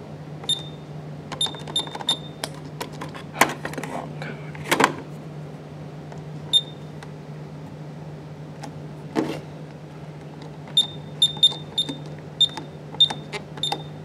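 Honeywell/Ademco Vista alarm keypad giving a short high beep for each key press, in quick runs of several beeps near the start and again near the end, with one more in between. A few louder knocks come in the middle.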